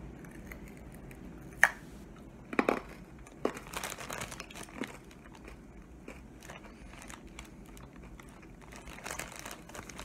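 Hard sesame brittle bar being bitten and chewed: a sharp crack about one and a half seconds in, then scattered crunching in the middle and again near the end.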